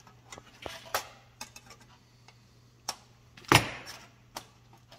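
Small metal clicks and clinks from clecos, cleco pliers and aluminium brackets being handled, with one louder knock about three and a half seconds in as the bracket is pressed into place.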